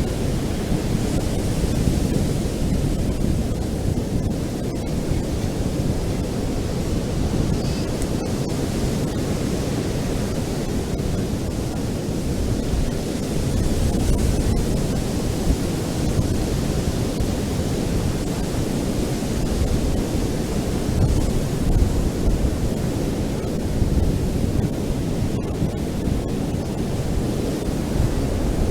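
Ocean surf washing onto a beach: a steady low rush of waves that swells and eases slowly.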